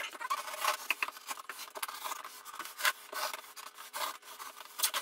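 Scissors scraping and slitting the packing tape along the seam of a foam shipping box, an irregular series of short scraping strokes of the blade against tape and foam.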